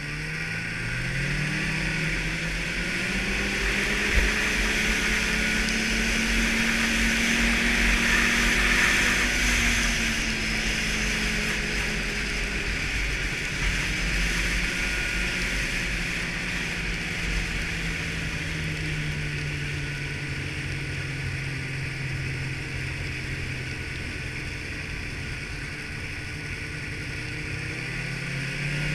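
Snowmobile engine running under way on a snow trail. Its pitch climbs in the first couple of seconds, holds, then slowly eases off through the middle and picks up again near the end, over a steady hiss. A single sharp knock sounds about four seconds in.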